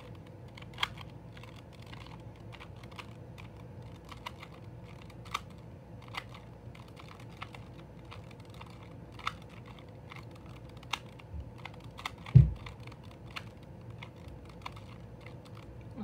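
Plastic 2x2 Rubik's cube being turned by hand: irregular sharp clicks as its layers are twisted, about one a second. A single dull low thump, the loudest sound, comes about twelve seconds in.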